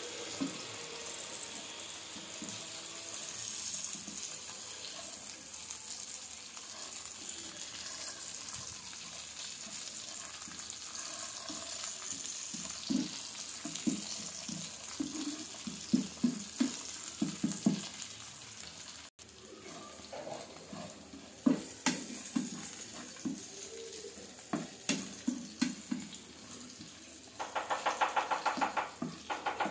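Hilsa fish steaks and sliced onions sizzling in hot oil in a frying pan, with a steady hiss. A wooden spatula knocks and scrapes against the pan as the pieces are stirred and turned, more often in the second half, ending in a fast run of taps.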